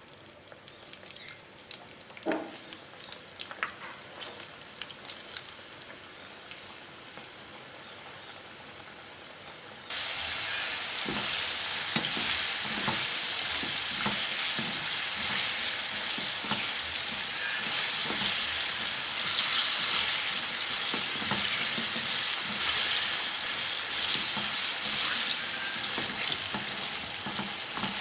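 A few quiet kitchen handling clicks and a single ringing clink, then about ten seconds in a sudden change to steady, loud sizzling of chicken fillets frying in hot oil, with scattered soft knocks.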